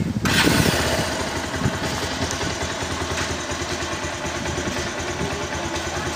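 R180 motorcycle engine starting at once, about a quarter second in, louder for about a second and then settling into a steady idle. The idle is unsteady, which the mechanic puts down to a leaking valve.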